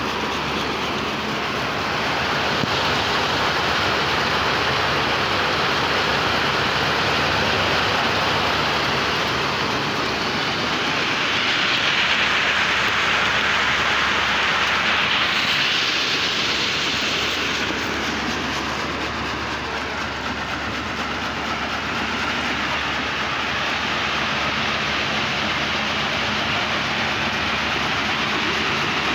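Peanut shelling machine running steadily: a dense, continuous rattle of pods being cracked and shaken through the machine, with a brighter hiss for several seconds midway.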